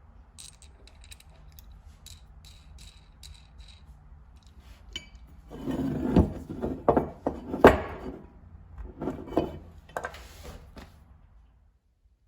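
Small brass hand tool being handled on a hard bench: light clicks and taps with a faint metallic ring, then about halfway through louder knocks, rubbing and scraping that stop shortly before the end.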